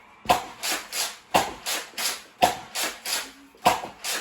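A Nerf blaster being primed and fired over and over: about four sharp snaps roughly a second apart, each with a rasping slide stroke between them.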